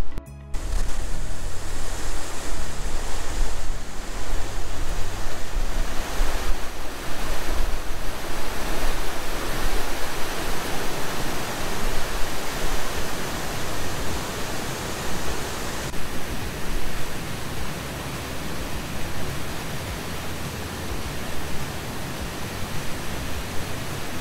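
Steady rush of falling water from a waterfall, with a slight shift in the sound about two-thirds of the way through.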